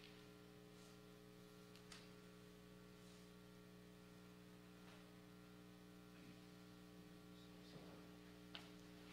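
Near silence: a steady low electrical hum, with a few faint clicks.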